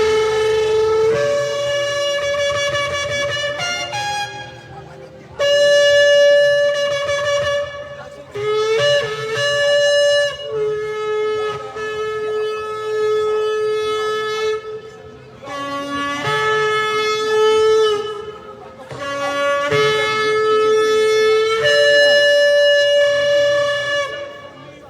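Shofar blown in about eight long blasts, each note held steady, stepping between a lower and a higher pitch, with short breaks between them.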